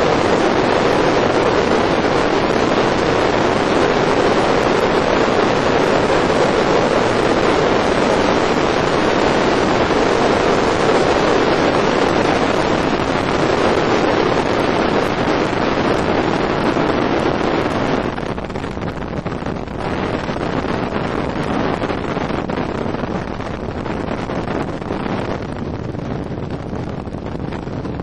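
Wind rushing on the microphone over the steady engine and hull noise of a bass boat running across open lake water. The noise drops somewhat about two-thirds of the way through.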